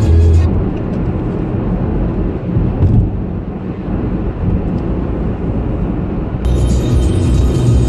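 Road noise inside a car's cabin while driving on a motorway: a steady low rumble of tyres and engine. Music in the car stops about half a second in and starts again near the end.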